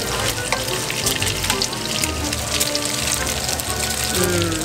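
Bacon and ground beef sizzling in frying pans, over background music.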